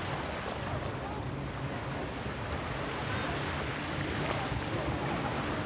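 Ocean waves washing onto a beach, a continuous surf noise that swells gently.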